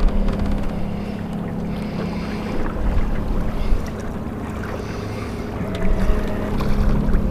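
A boat motor running steadily with an even hum, with wind buffeting the microphone.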